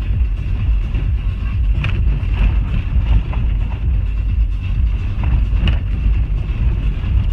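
Jeep driving slowly over a rough, icy gravel road, heard from inside: a steady low rumble from tyres and drivetrain, with scattered knocks and rattles as the wheels go over stones, and a thin steady high whine.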